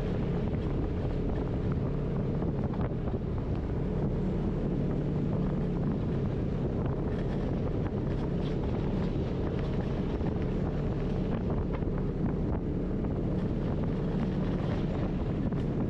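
Polaris RZR side-by-side's engine running steadily while driving along a dirt trail, with wind buffeting the microphone and scattered light ticks and knocks.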